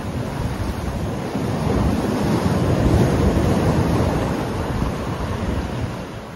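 Sea surf breaking on a rocky granite shore, a steady wash of waves with wind rumbling on the microphone, growing quieter near the end.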